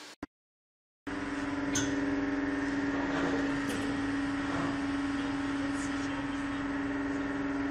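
A steady machine hum with one strong low tone, starting about a second in after a brief dead silence, with a few faint clicks and knocks over it.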